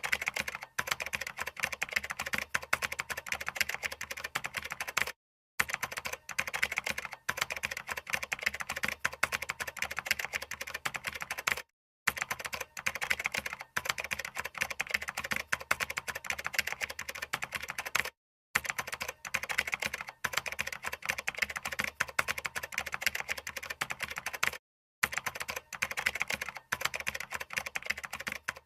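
Fast continuous typing on a keyboard, a dense stream of key clicks that drops out to dead silence for a split second about every six and a half seconds, where the recording loops.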